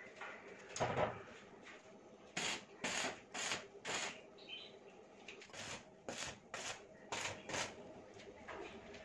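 Repeated short rasping scrapes, about a dozen strokes in two quick runs.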